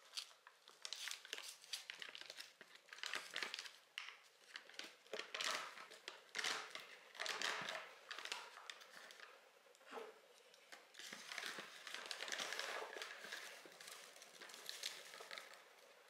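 Wrapping or packaging being crinkled and rustled by hand, in irregular crackly bursts.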